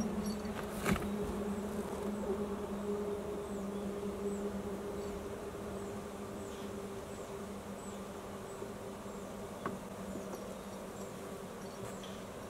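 A steady low buzzing hum that fades slowly. Faint short high chirps repeat less than a second apart, and there is a faint click about a second in.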